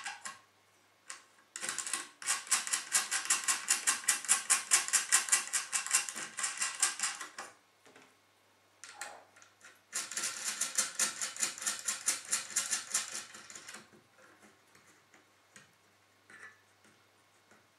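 Screws of a syscooling SC-C16CPU water block being turned down by hand, giving two long runs of rapid, even clicking, several clicks a second, with a few lone clicks between them.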